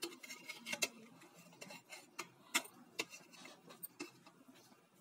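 Metal slotted spoon clicking and scraping as cooked biryani rice is scooped out of an aluminium pot: a run of sharp ticks at irregular intervals, the loudest about two and a half seconds in.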